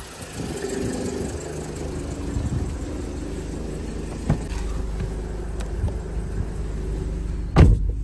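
Car engine idling with a steady low hum, a short click about four seconds in, and a car door slamming shut near the end, the loudest sound.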